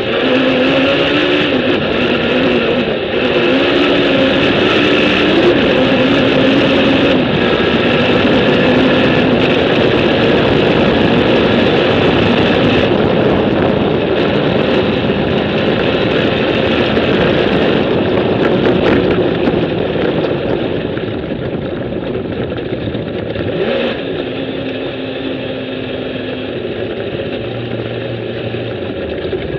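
Suzuki Hayabusa inline-four engine of a sandrail running under way, its pitch rising and falling with the throttle over a broad rushing noise. It is a little quieter in the last third.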